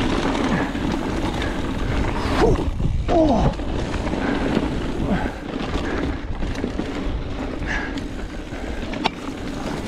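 Mountain bike descending a dirt single-track trail at speed: wind buffeting the body-mounted camera's microphone over the rush of tyres on dirt. There are a couple of brief falling sounds between two and a half and three and a half seconds in, and a single sharp knock about nine seconds in.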